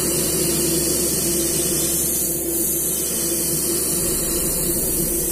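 Gravity-feed airbrush spraying paint in a continuous steady high hiss, over a steady low hum.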